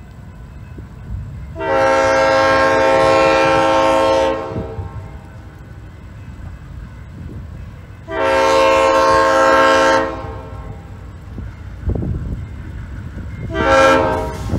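Diesel freight locomotive's air horn sounding the grade-crossing signal: two long blasts, then a short one near the end, each a chord of several steady notes. The horn pattern signals the train's approach to the crossing. Under it, the locomotive's low rumble grows louder near the end as it nears.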